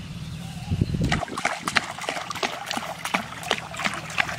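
A hooked fish thrashing at the water's surface as it is pulled in on a fishing pole: a rapid, irregular run of splashes that starts about a second in.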